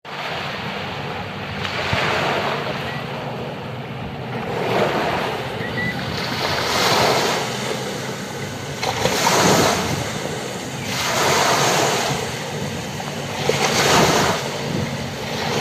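Small sea waves breaking and washing up a sandy beach, surging every two seconds or so, with wind on the microphone.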